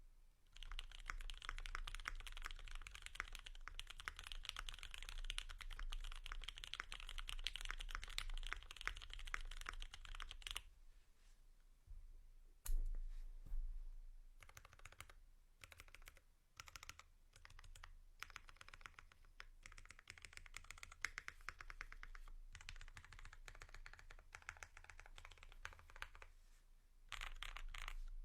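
Typing on a Mode Eighty mechanical keyboard with a polycarbonate plate, lubed OA switches and GMK keycaps. Fast, steady typing for about ten seconds, a short pause, then a single loud keystroke, scattered strokes, and steady typing again.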